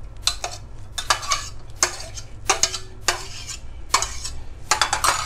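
Metal spoon clinking and scraping against a plate, about once or twice a second, as blanched shrimp are pushed off it into a bowl of wet salad dressing.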